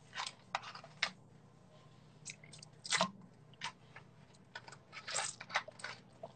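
Scattered soft clicks, taps and rustles close to the microphone, irregular and a few a second at most, over a faint steady low hum.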